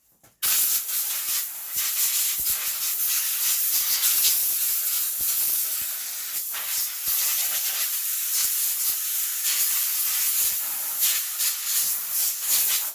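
A long, loud, steady hiss of pressurised gas rushing from a nozzle. It starts about half a second in and stops abruptly at the end, with small flutters in strength along the way.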